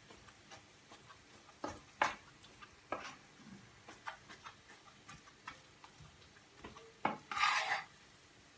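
Metal spoon scraping and knocking in a frying pan as minced meat is stirred and broken up while it browns, so that it stays loose instead of clumping. There is a faint sizzle underneath, and a longer, louder scrape near the end.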